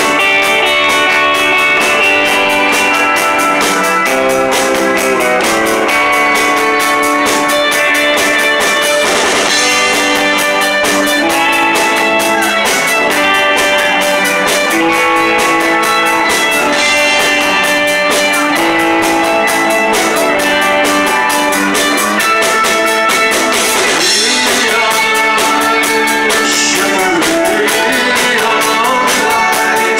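Live rock band playing an instrumental passage: electric guitars and bass over a drum kit keeping a steady beat.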